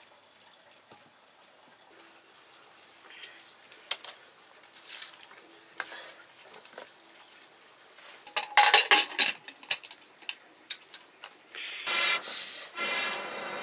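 Scattered knocks and clinks of a metal cooking pot and firewood being handled on a stone hearth, with a quick run of loud clattering knocks about two-thirds of the way in. Near the end comes a long rushing blow, twice, through a metal blow pipe into a wood fire to fan the flames.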